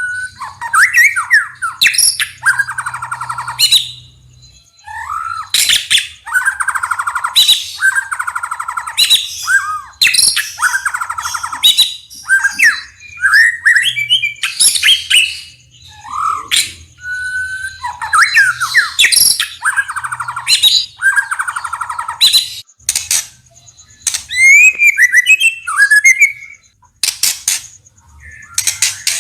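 White-rumped shama singing a loud, varied song: whistled glides alternating with harsh runs of rapid repeated rattling notes, with sharp clicks between phrases and only short pauses.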